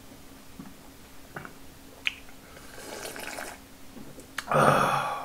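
Slurping udon broth straight from a bowl held to the mouth, in a few separate sips, with a louder breathy burst near the end.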